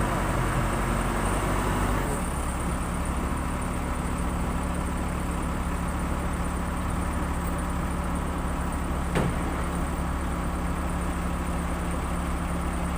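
Backhoe loader's diesel engine running steadily, its note shifting about two seconds in, with a single sharp knock about nine seconds in.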